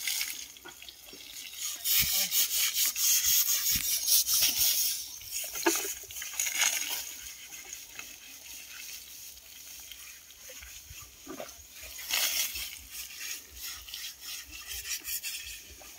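Water thrown from a bucket splashing onto an elephant's hide, in several bursts, the longest a couple of seconds in and lasting about three seconds, with a few dull thuds.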